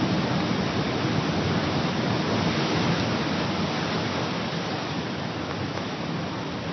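Steady rushing noise of surf and wind, easing slightly over the seconds.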